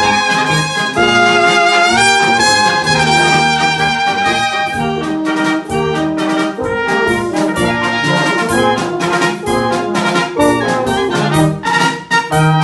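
Live wind band of clarinets, trumpets, trombone, baritone horns, tubas and drums playing a polka. Short repeated brass notes over a regular drum beat.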